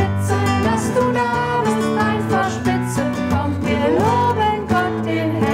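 Nylon-string classical guitar strummed in a lively, even rhythm, with voices singing along: an upbeat German children's worship song.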